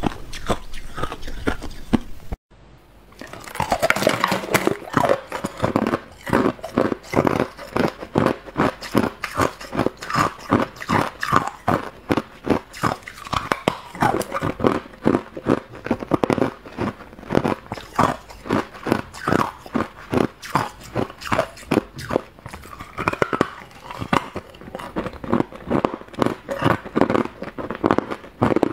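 Hard ice being bitten and chewed, picked up close by a lapel microphone: rapid, sharp crunching, several crunches a second, with a brief break about two seconds in.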